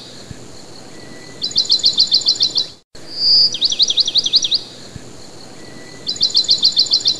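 Looped recording of songbird chirping: a high whistled note, then a quick run of falling chirps, then a rapid string of high chirps. The same phrase repeats about every four and a half seconds, with a brief dropout where the loop restarts.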